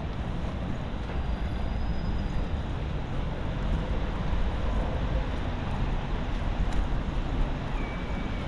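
Rainy city street ambience: a steady hiss of rain over the low rumble of passing road traffic.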